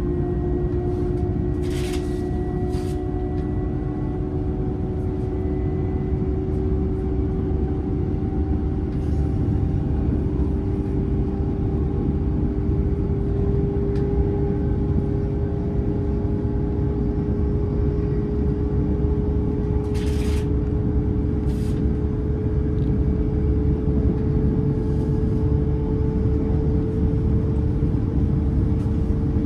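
Passenger train running, heard from on board: a steady low rumble with a motor whine that slowly rises in pitch as the train gathers speed. A few short clicks about two seconds in and again near twenty seconds.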